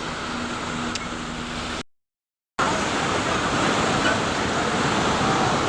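Steady rushing water of a mountain waterfall or stream. A fainter rushing sound with a low hum gives way to a short gap of silence about two seconds in, then a louder, even roar of water.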